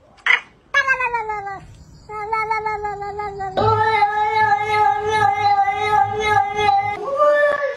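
Domestic cats meowing: a short falling meow about a second in, then long, drawn-out yowls held at a nearly steady pitch as two cats call back and forth at each other.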